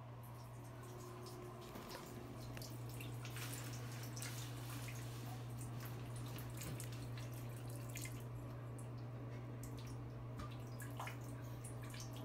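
Water dripping and splashing into a toilet bowl in irregular drops, over a steady low hum.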